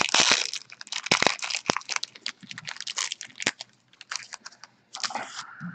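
Handling noise from trading-card packs and cards. A crinkle of wrapper opens a rapid, irregular string of sharp clicks and taps, which thin out after about three and a half seconds. A brief rustle comes about five seconds in.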